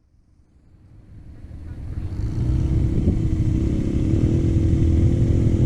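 ATV engine running steadily, fading in from silence over the first two seconds.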